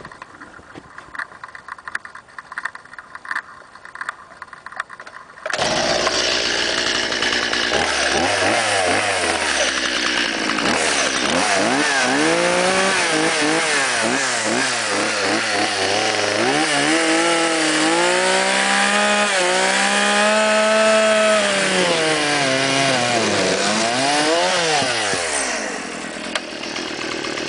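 A few seconds of clicks and knocks, then a STIHL MS 170 two-stroke chainsaw is running loudly from about five seconds in, revved up and down over and over to its top rpm.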